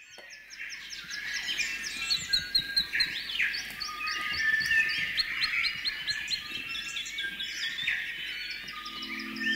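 Dense chorus of many songbirds chirping and calling over one another, with quick rising and falling whistled notes, fading in at the start.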